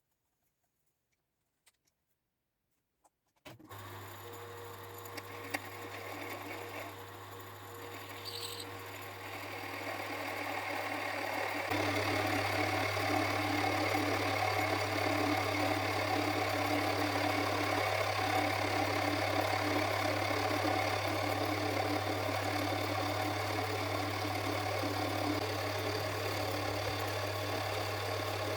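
Small metal lathe's electric motor switched on, running with a steady low hum and whirring drive. It gets louder over the following seconds, then runs steadily.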